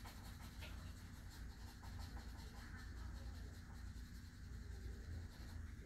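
Faint scratching of a graphite pencil on paper in many quick short strokes, as fur hairs are drawn in, over a steady low hum.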